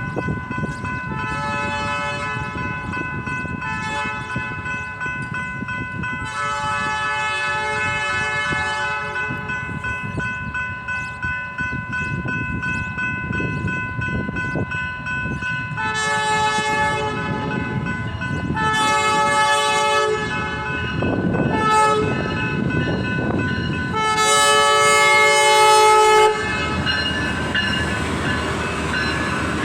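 Air horn of Amtrak Midwest locomotive IDTX 4609, a Siemens Charger, a horn the uploader calls very bad. It sounds several blasts in the first nine seconds, then two long, one short and one long, the grade-crossing signal, with the final blast the loudest and cutting off sharply. The passing train then rumbles and clatters.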